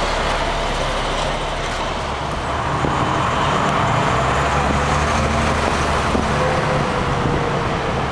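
Bus engine running as the bus gets under way, heard from inside the cabin. The engine grows louder about two and a half seconds in, with road and traffic noise underneath.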